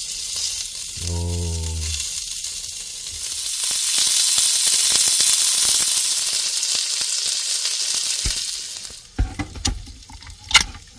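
Duck meat sizzling on a small portable grill plate, the sizzle swelling louder in the middle and dying down about nine seconds in. A few sharp clicks follow near the end.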